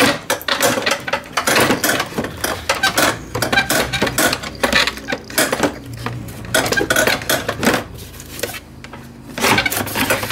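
Electric fan shroud being wiggled and pulled free from behind a car radiator: a dense run of rattling, clattering knocks as it catches on the surrounding parts. The knocks ease off briefly about eight seconds in, then start again.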